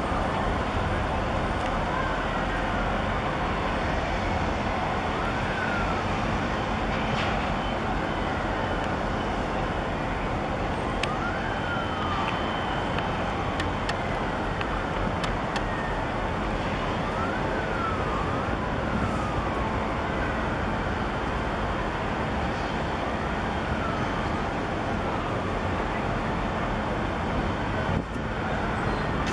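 Steady rushing background noise with a high wail that rises and falls in pitch again and again, as from a siren.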